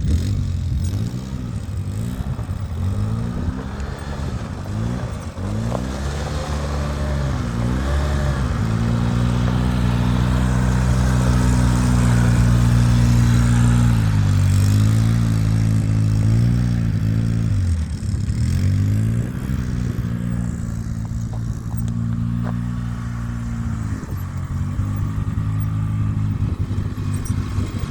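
Polaris 700 Twin Sportsman ATV engine running and being revved up and down by hand several times. It is held at a raised, steady speed for several seconds in the middle, drops back to a low idle about two-thirds through, then is raised and held again.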